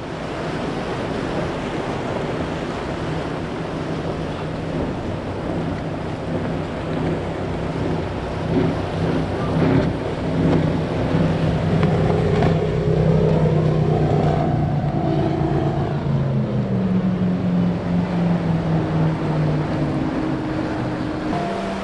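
Speedboat engines droning as boats run past at speed, over the rush of wind and waves. The engine hum grows louder through the middle and drops in pitch as a boat goes by.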